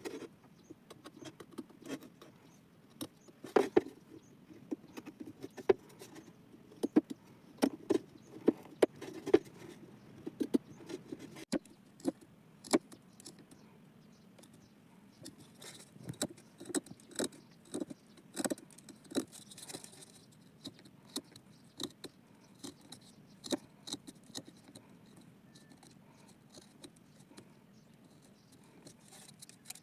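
Irregular sharp clicks and light knocks, unevenly spaced, from hand work on a small wooden piece. The clicks thin out in the last third.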